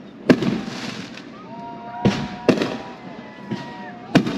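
Fireworks display: about five sharp aerial bursts, irregularly spaced, each with a short rumbling tail.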